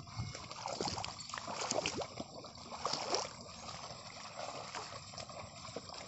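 Water and mud sloshing and splashing as bullocks and a plough wade through a flooded paddy field being puddled, uneven rather than rhythmic.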